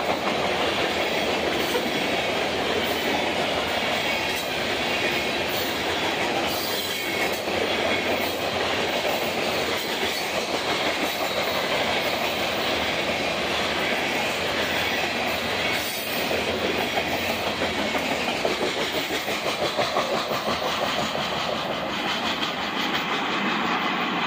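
A long freight train of covered hopper cars rolling past, its steel wheels clacking over the rail joints in a steady rhythm above a constant rolling rumble.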